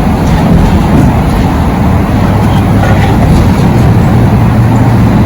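Motor vehicle engine running, a loud steady drone whose low hum grows stronger about halfway through.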